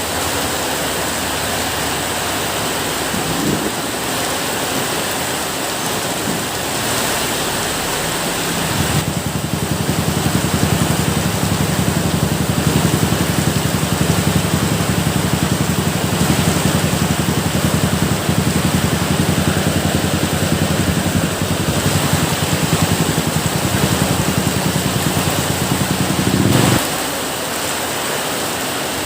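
Steady rain hiss. About a third of the way in a low rumble rises under it and runs on, then cuts off suddenly near the end.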